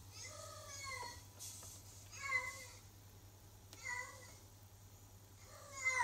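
A cat meowing four times, short calls about every one and a half to two seconds.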